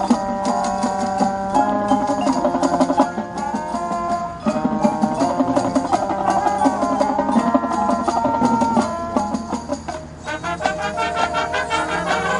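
High school marching band playing its field show music: held chords and melodic lines over mallet percussion, with a short drop in volume near the end before the band comes back in.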